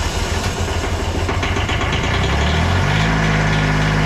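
Diesel engine of a Lincoln Ranger 300 DLX welder just after starting, running unevenly, then picking up speed about two to three seconds in and settling into a steady run. The owner puts the poor running down to lack of fuel: an air void in the diesel line to the injectors.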